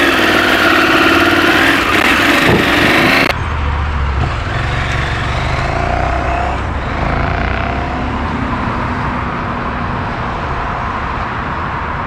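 KTM 790 Adventure R's parallel-twin engine pulling away and accelerating. About three seconds in it cuts off abruptly to a steadier low vehicle rumble.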